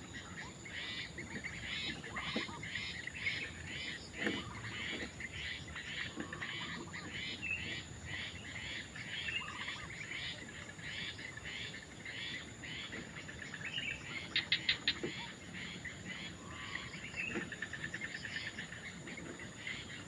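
Heron chicks calling in the nest, a steady series of short high calls at about two a second, with a quick run of clicks about three-quarters of the way through.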